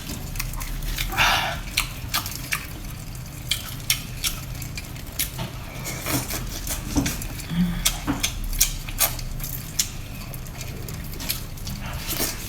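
Wet, irregular clicks and smacking sounds of someone eating spicy crab close to the microphone.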